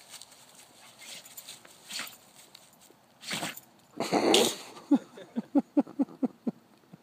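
A dog making two breathy snorting blasts a little past three and four seconds in, then a quick run of about eight short, low, pitched cries.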